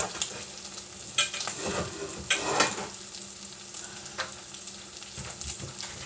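Food sizzling in a hot frying pan, with a few scrapes and clinks of a utensil in the pan about a second in and again around two to three seconds in.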